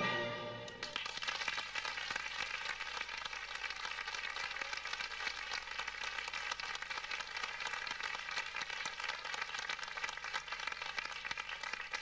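Orchestral music ends about a second in, and a theatre audience breaks into steady applause, many hands clapping at once.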